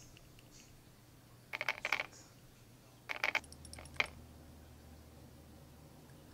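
Faint clinks and clicks of small glass Tamiya paint jars and their screw caps being handled over a plastic palette: two short rattling clusters, then a single sharp click.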